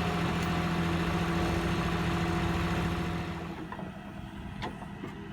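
Diesel tractor engine running at steady throttle with a constant pitch, then dropping to a quieter idle a little past three seconds in.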